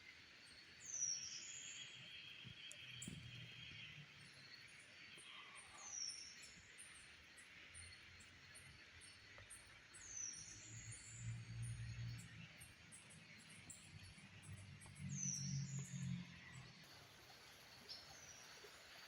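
Rainforest ambience: a bird gives a high, downward-sliding whistle about every five seconds, four times, over a steady chorus of insects. Some low, muffled rumbles come in between the calls.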